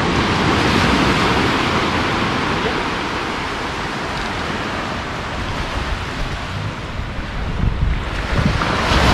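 Small surf breaking and washing up a sandy beach, with wind rumbling on the microphone. The wash swells at the start, eases off in the middle and builds again near the end.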